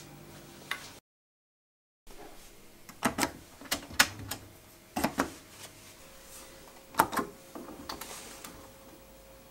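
Oven control knobs on a stainless-steel oven panel clicking through their detents as they are turned, first the function selector and then the temperature dial, in clusters of sharp clicks. A faint steady hum sets in about halfway through.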